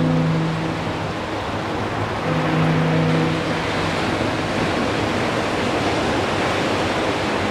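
Surf breaking and washing up a sandy beach. A low, distant foghorn tone with several notes fades out about a second in and sounds again briefly about two and a half seconds in.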